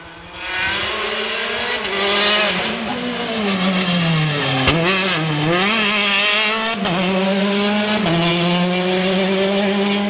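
Rally car engine revving hard as the car comes past. The pitch rises, falls in the middle of the pass, and gives one sharp pop about four and a half seconds in, then climbs again and holds at high revs.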